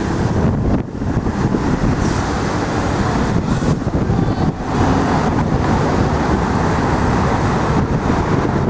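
Wind buffeting the microphone over the steady rumble of city street traffic.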